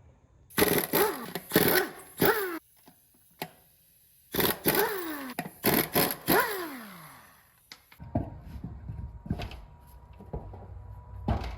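A handheld power tool run in short bursts, each burst winding down in falling pitch. About two-thirds of the way through, the sound changes abruptly to a quieter steady hum with a few light knocks.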